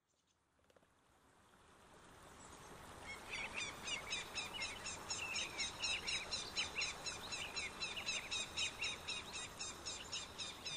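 Outdoor bird ambience fading in after a short silence: many birds chirping in quick succession over a steady background hiss.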